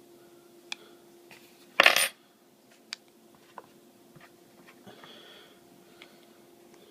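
Small metal pieces clinking and jingling sharply for a moment about two seconds in, followed by a few faint light ticks. A faint steady hum runs underneath.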